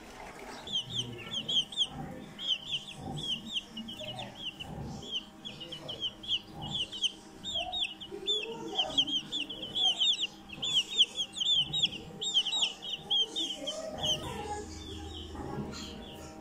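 Young chicken peeping: a quick run of short, high, falling peeps, several a second, which stops about fourteen seconds in.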